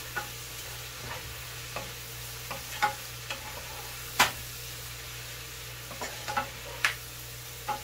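Wooden spoon stirring sliced bell peppers and onions frying in a sauté pan: a steady sizzle with irregular taps and scrapes of the spoon against the pan, the loudest knock about four seconds in.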